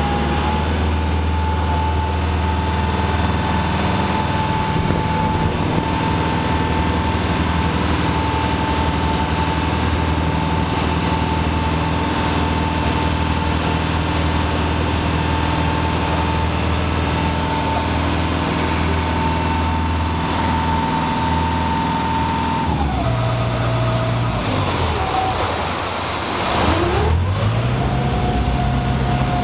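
A small harbour ferry's engine runs at a steady, even pitch under way. About 23 s in it throttles down as the boat comes in to its landing pier. The pitch then sweeps down and back up with a rush of churning propeller wash, and it revs up again near the end to check the boat alongside.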